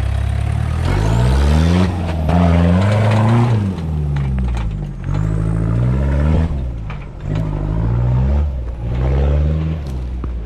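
Toyota 4Runner's 1KZ four-cylinder diesel revved up and falling back about five times in a row as it is given more throttle to claw up a steep rocky climb without lockers, with a few sharp knocks.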